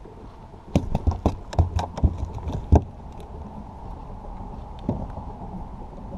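A bass thrashing in a rubber-mesh landing net against a plastic kayak: a quick run of about ten knocks and thumps over two seconds, then one more knock later.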